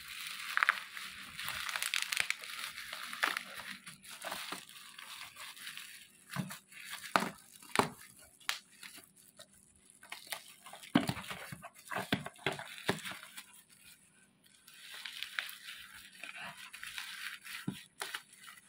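Plastic parcel wrapping crinkling and tearing as it is pulled open by hand, with sharp crackles and snaps in between; the rustling is heaviest at the start and again near the end.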